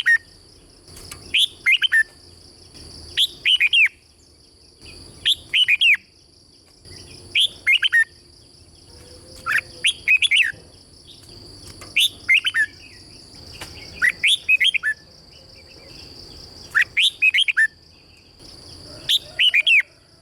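Red-whiskered bulbul singing: short phrases of a few quick, swooping whistled notes, repeated about every two seconds.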